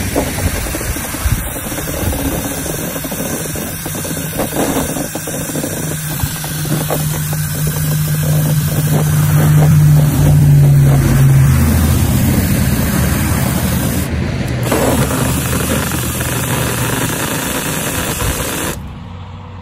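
Ryobi cordless drill running a mixing shaft in the liquid fertilizer mix inside a backpack sprayer's tank, churning it steadily. The motor's hum drops in pitch a little past the middle, and the drill stops shortly before the end.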